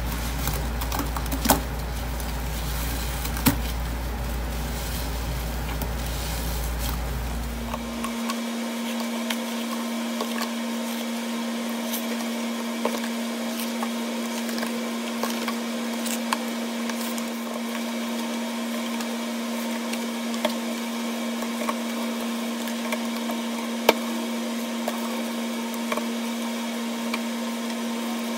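Thick wet paste being worked, scooped and scraped around a stainless steel sink, with soft scrapes and small clicks over a steady background hum. The hum is low at first and changes to a higher steady tone about eight seconds in.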